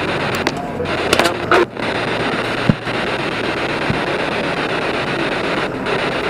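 SB7 spirit box sweeping the radio band, a steady hiss of static through a speaker. A few sharp clicks and one short knock come as the box is handled and stood on the table.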